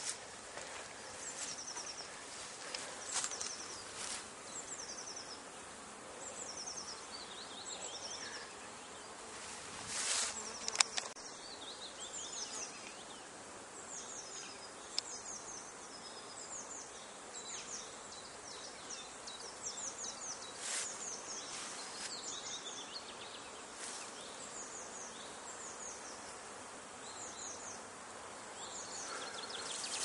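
Buckfast honeybees buzzing steadily around the hive entrances as they fly in and out. Birds chirp repeatedly in the background.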